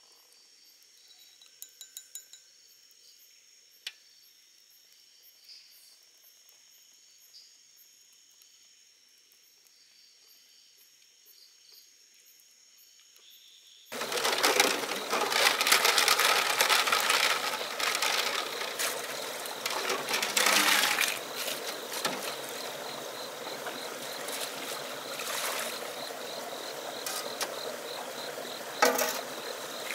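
Night insects chirping with steady high tones, and a few light metal clinks of a utensil against the pot. About halfway through, a sudden switch to loud running stream water and splashing as snails in a stainless steel colander are rinsed in the stream, with many small clicks of shells and metal and one sharp knock near the end.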